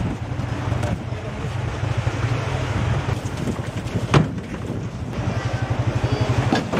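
An engine idling with a steady, rapid low pulse, and a single sharp knock about four seconds in.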